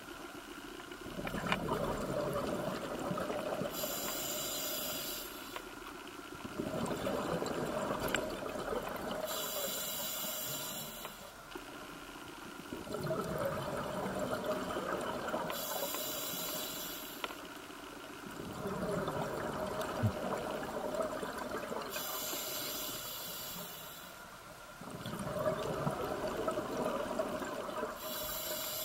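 A scuba diver breathing through an open-circuit regulator underwater: a slow cycle of breathing hiss and exhaled bubbles rushing out, about five breaths, one every six seconds or so.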